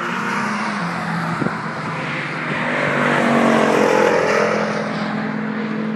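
Cars on a race circuit driving past under power, the engine note held steady; a closer pass swells to its loudest a little past halfway through.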